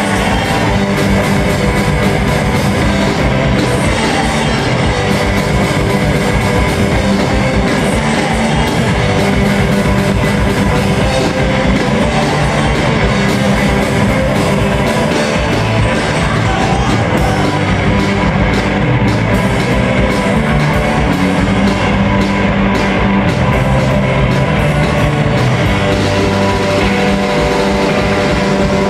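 A rock band playing live: electric guitars, electric bass and a drum kit, loud and continuous.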